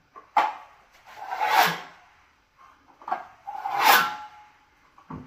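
Steel putty knife scraping acrylic filler across a wall, about four strokes, each swelling and fading. Short sharp scrapes alternate with longer drawn-out ones.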